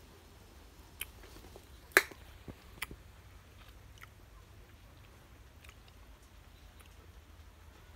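Someone chewing a bite of green dâu da (Baccaurea) fruit: a few short, sharp crunching clicks in the first three seconds, the loudest about two seconds in, then only faint background.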